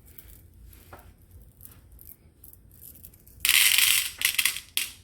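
Plastic bead packet crinkling as it is handled and opened. Faint small clicks come first, then about three and a half seconds in a loud stretch of rustling, followed by a few shorter rustles.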